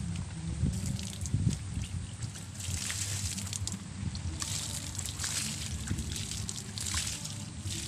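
Water poured from a plastic bucket over a hand, splashing and trickling onto soil and leaves at the base of plants, strongest in the second half.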